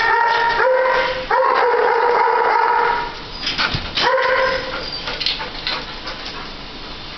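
Kennelled shelter dog howling and whining in long, drawn-out, steady notes, several in a row over the first three seconds and one more a little after four seconds. After that it goes quieter, with a few short sharp sounds.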